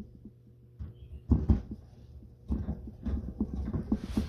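Handling noise as the phone camera is moved and set down: a couple of dull thumps, then a run of small knocks and scuffs.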